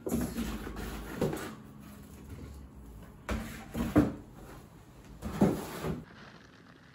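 A run of knocks and scrapes from an air fryer's box and packaging being handled, with the loudest knock about four seconds in; the handling stops about six seconds in.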